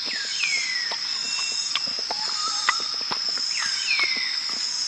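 Forest ambience: insects keep up a steady high-pitched drone, a bird gives a falling whistled call twice, about three and a half seconds apart, and faint scattered clicks run underneath.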